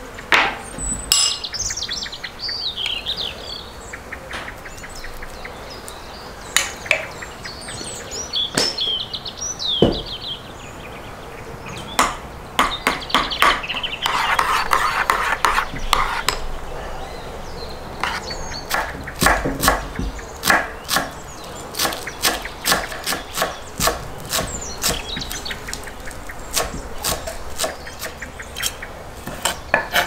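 A metal spoon stirring a creamy sauce in a ceramic bowl, scraping and clinking against its sides, with birds chirping in the first few seconds. In the second half, quick regular strokes of a knife chopping herbs on a wooden cutting board.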